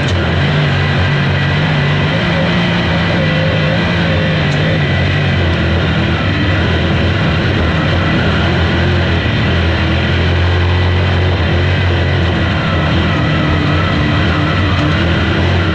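Sprint car V8 engine running at full race pace, heard from on board the car, steady and loud with its pitch shifting slightly through the corners.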